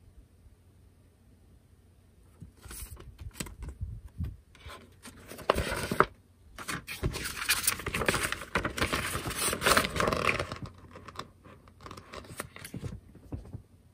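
Paper rustling and crinkling as a large printed instruction sheet is handled and unfolded, loudest in a dense stretch in the middle, with lighter handling rustles before and after.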